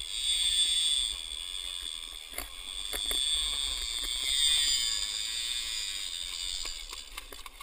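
Conventional lever-drag fishing reel's drag screaming as a hooked fish pulls line off: a steady high-pitched buzz that swells and fades, with a few knocks.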